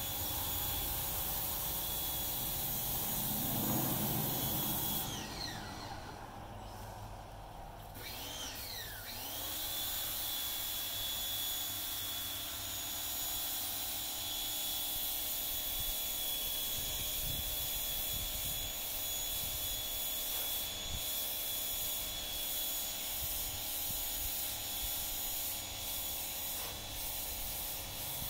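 A small electric motor, like a power tool's, whining steadily at a high pitch. About five seconds in it winds down and goes quiet, winds back up a few seconds later and runs on, then begins winding down again at the very end. A low buzz swells briefly around four seconds in.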